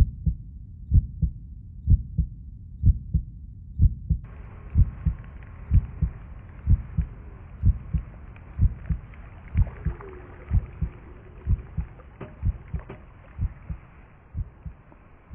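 Heartbeat sound effect: a steady 'lub-dub' double thump about once a second, fading near the end. From about four seconds in, a faint steady hiss of outdoor ambience runs beneath it.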